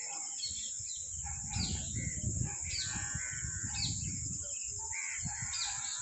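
Birds calling over a steady high insect drone, with short downward-sweeping calls repeating about once a second. A low rumble runs under the middle of it.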